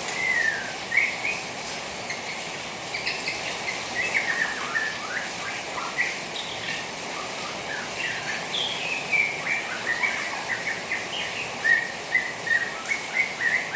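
Juvenile white-rumped shama twittering: a run of quick, short chirps and sliding whistled notes, busier in the second half, over a steady hiss of rain water.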